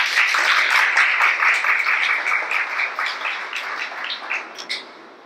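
Audience applauding at the end of a talk, many hands clapping at once, thinning out and dying away near the end.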